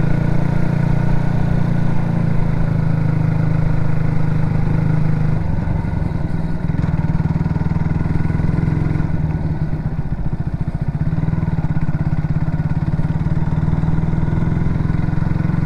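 Yamaha MT-125's single-cylinder 125 cc engine running while riding. About five seconds in the engine note drops and turns uneven as the bike slows for horses ahead, then settles into a steady lower note.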